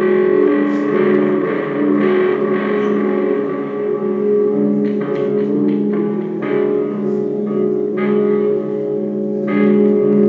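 Live instrumental psychedelic music: guitar notes ring out over a sustained, steady drone.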